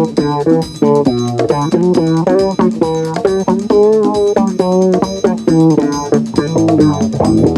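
Instrumental jazz-funk with a busy melodic guitar line over bass guitar and a steady drum beat.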